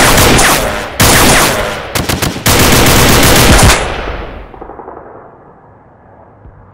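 Automatic gunfire in several long bursts, the last breaking off a little under four seconds in and dying away in an echoing tail.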